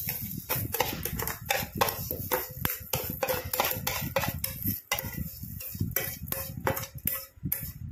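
Steel spoon scraping and clinking against a stainless-steel bowl as granulated sugar is spooned out into another steel container, with irregular clinks several times a second.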